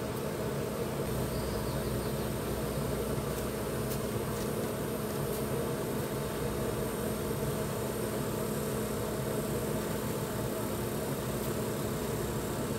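Steady motor hum, a constant low drone with a few faint clicks over it.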